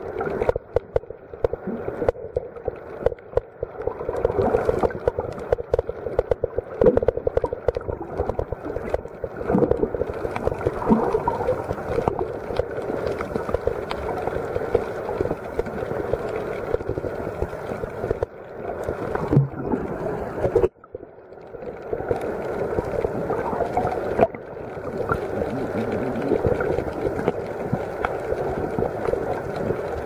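Muffled rushing and gurgling of water around a camera held underwater, with many small crackling clicks throughout. The noise cuts out abruptly about two-thirds of the way in, then swells back.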